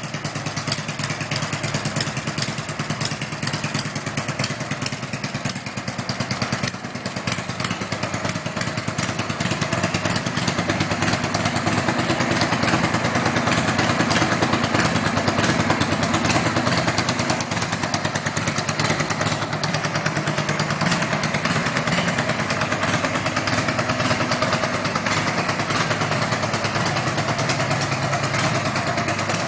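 Customised 2002 Harley-Davidson Sportster's V-twin engine running steadily through its exhaust, a little louder around the middle.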